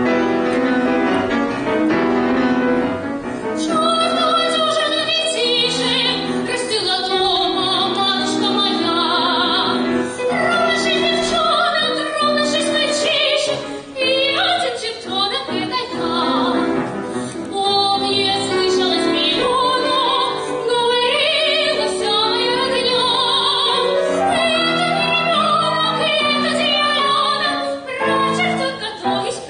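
A young woman's soprano voice singing an operetta song with vibrato, over piano accompaniment. The accompaniment plays alone for about the first three seconds before the voice comes in.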